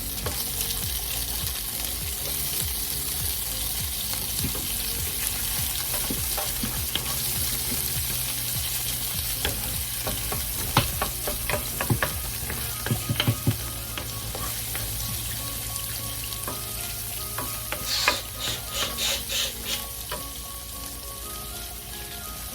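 Garlic and onion sizzling in hot oil in a frying pan, with a utensil clicking and scraping against the pan as they are stirred. Near the end comes a quick run of about six stirring strokes.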